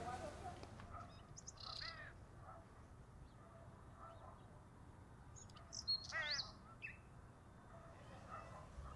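Faint, scattered bird chirps and calls in a quiet open-air background, loudest around six seconds in.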